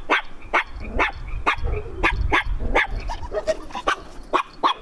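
A dog barking in a quick run of short, sharp barks, about two or three a second.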